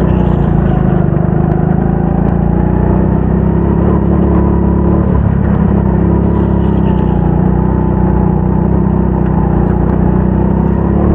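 Rental go-kart engine running hard on the track, with a steady drone whose pitch dips slightly and climbs again as the kart goes through corners.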